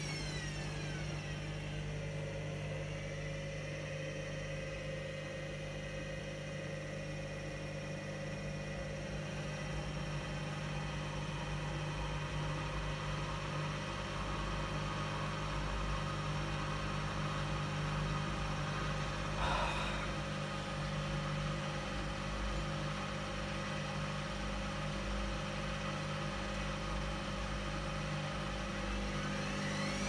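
Hoover front-loading washing machine in a suds lock, where too much foam has interrupted the spin. Its motor whines down in pitch over the first couple of seconds as the drum slows, then a steady mechanical hum runs on with a single click about twenty seconds in, and near the end the motor whine rises again as the drum spins back up.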